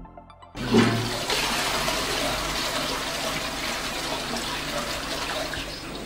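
Villeroy & Boch Subway close-coupled floor toilet flushing: water rushes into the ceramic bowl with a sudden start about half a second in, then runs steadily. This is the test flush of the newly installed toilet.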